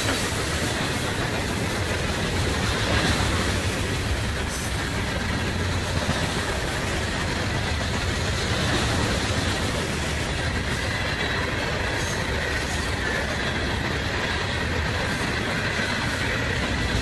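Loaded aggregate hopper cars of a freight train rolling past: a steady rumble and rattle of steel wheels on the rails, with a few faint knocks as the wheels pass over the rail.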